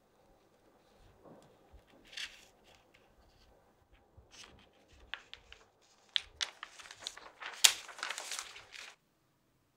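Clear plastic film being peeled off a set coconut filling, crinkling and crackling with sharp clicks. It grows denser and louder in the second half and stops suddenly near the end.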